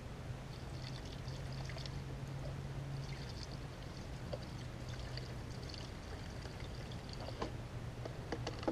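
Coolant mix of distilled water and Water Wetter poured from a plastic jug through a funnel into a motorcycle's coolant reservoir: a steady trickling pour, with a few light clicks near the end.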